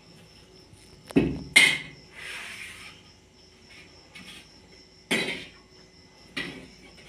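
Stainless steel thali and small steel bowl being handled on a stone counter: a few sharp metal clinks and knocks about a second in, a short scraping slide just after, and more knocks around five and six and a half seconds in.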